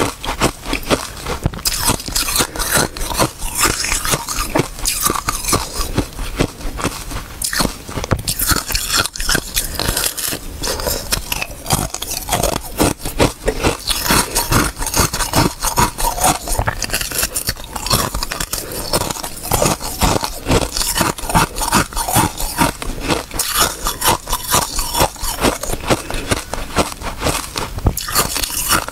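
Frozen basil-seed ice being bitten and chewed close to a clip-on microphone: a dense, continuous run of crisp crunches and crackles.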